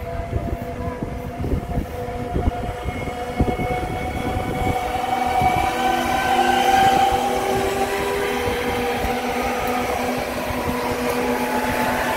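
Slovenian Railways class 312 Siemens Desiro electric multiple unit rolling past close by. Its traction equipment whines in several steady and slowly rising tones over the rumble of the wheels, and it grows louder over the first half as it comes alongside.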